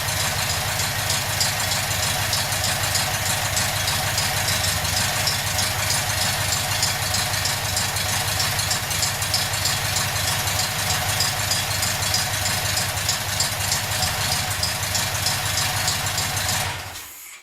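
Freshly rebuilt air-cooled VW Beetle flat-four engine on its first test run, running steadily with no cooling fan fitted. It is switched off about a second before the end and dies away quickly.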